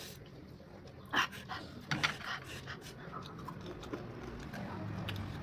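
A person panting and sharply sucking in air through the mouth, with short, louder gasps about one and two seconds in: the reaction to the burn of hot chillies just eaten.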